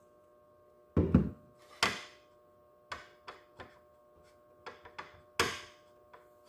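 A jar of spread set down on a kitchen countertop with a thunk, followed by a knife or spoon clicking and scraping as the spread goes on the bread. The thunk about a second in is the loudest; a sharper knock follows just before two seconds, then lighter clicks and another firm knock about five and a half seconds in.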